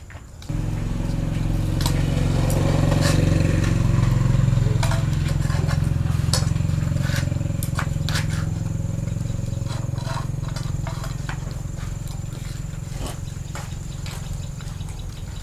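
A motor or engine running steadily, starting abruptly, loudest a few seconds in and then slowly fading, with scattered light clicks over it.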